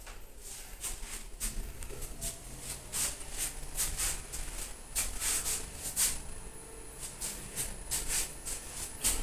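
Mitsubishi lift car travelling between floors, a steady low hum under frequent irregular rustling and scuffing as the phone is moved and handled.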